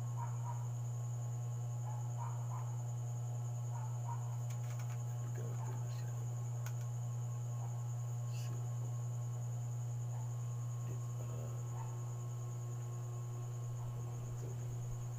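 A steady low electrical hum, with a faint thin high whine above it and a few soft clicks as a small plastic drone is turned over in the hands.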